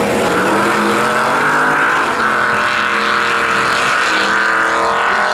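Chevrolet Silverado and Dodge Dakota pickup trucks racing flat out around an oval, their engines held at high revs with a steady pitch.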